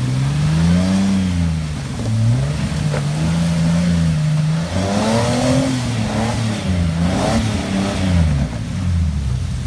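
Off-road vehicle engine revving up and down again and again as it is driven up a rocky climb, with a few clunks along the way.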